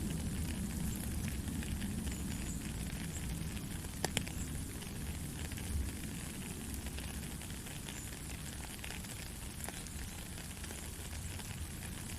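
Steady rain falling, a dense patter of many small drops over a low rumble, with one sharper drop or tap about four seconds in.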